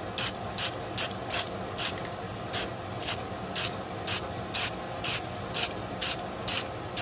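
Aerosol spray-paint can spraying in short, even bursts, about two a second, over a steady low hum.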